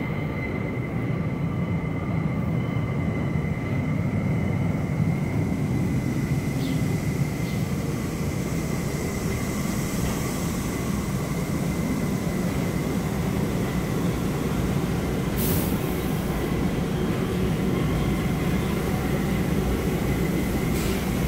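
New York City subway 1 train (R62A cars) pulling into an underground station, a steady rumble as the cars roll along the platform. A thin steady whine sits over the rumble, and there are two short hisses, one about two-thirds of the way in and one near the end.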